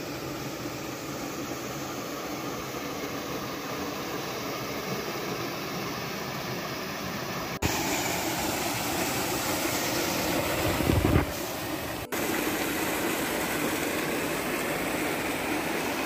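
Rushing water of a rocky stream and a small waterfall, a steady hiss-like noise that jumps in level at cuts about 7.5 and 12 seconds in. A short louder low rush sounds shortly before the second cut.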